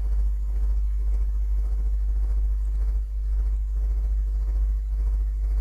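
Steady low electrical hum from the recording setup, with faint background noise and no other event.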